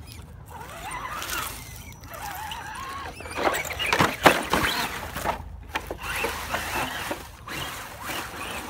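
Axial SCX10 RC crawler rolling over on a steep dirt bank: its motor whines with a wavering pitch, then a quick clatter of hits about four seconds in as the truck tumbles down the slope.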